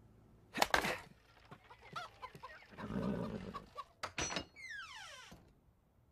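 Axe splitting a log on a chopping block: a sharp crack under a second in. Softer knocks follow, then a falling, whistle-like glide near the end.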